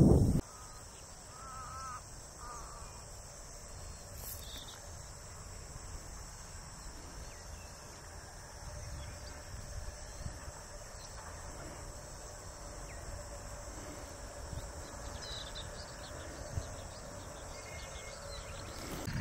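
Open-air wetland ambience: a steady high insect drone over a low wind rumble, with a few short wavering bird calls about two seconds in and scattered faint chirps later.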